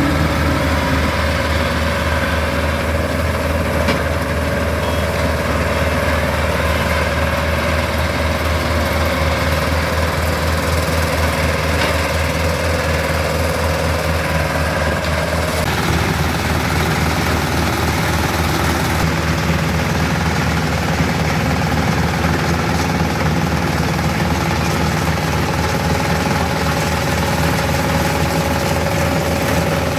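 Compact combine harvester running while cutting wheat: a steady low engine drone with a rapid, even pulse and a steady whine above it from the working machinery. The tone shifts slightly about halfway through.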